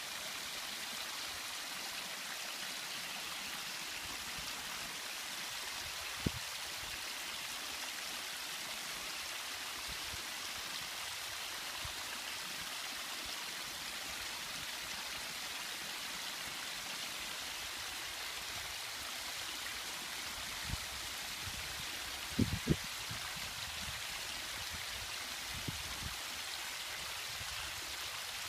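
Waterfall splashing steadily, an even rush of falling water, with a few brief low thumps around the middle and a cluster of them near the end.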